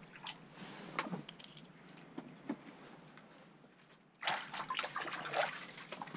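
Water splashing and sloshing in an ice-fishing hole, starting suddenly about four seconds in, after a few light clicks.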